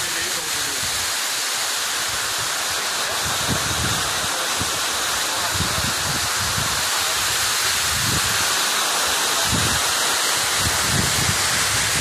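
Waterfall pouring over rock: a loud, steady, even rush of falling water, with low rumbles now and then underneath.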